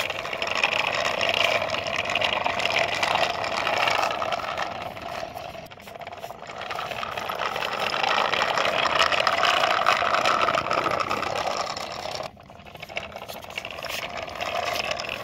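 Die-cast metal toy tractor and trailer dragged by a string over rough concrete, their wheels rolling and rattling. The noise rises and falls as it moves, drops around the middle and cuts off abruptly near the end before resuming briefly.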